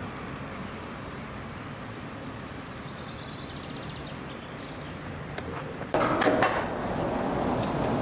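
A tram running on street track: a steady rumble, then a sudden loud clatter with several sharp knocks about six seconds in, after which the running noise stays louder.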